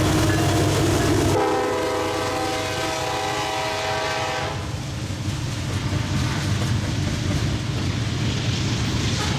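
Freight train passing: a diesel locomotive's low rumble, then a horn blast of about three seconds, then the steady roll of wheels on the rails as the cars go by.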